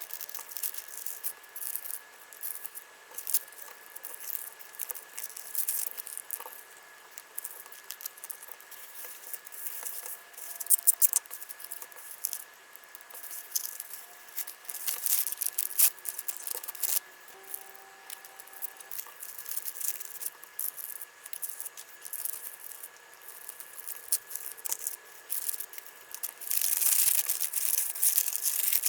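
Hands packing small accessory orders: scattered light clicks, taps and rattles of small items, with packaging rustling. The rustling turns denser and louder near the end.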